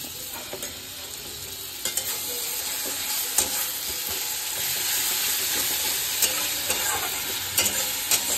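Onions and a fresh spice paste of cumin, ginger, garlic and chilli sizzling in hot oil in a frying pan, stirred and scraped with a steel spatula that clicks against the pan. The sizzle grows louder about two seconds in.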